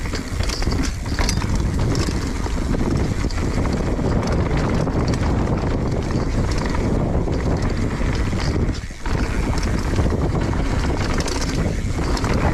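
Mountain bike riding down a dirt trail: wind buffeting the microphone over the rattle of the bike and the tyres on dirt, with many small knocks and a brief lull about nine seconds in.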